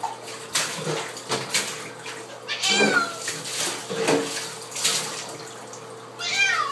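An orange tabby cat, soaked in a bath, meows twice in long, wavering calls that fall in pitch, once about three seconds in and again near the end. These are protest at being bathed. Sharp splashes of water come in between.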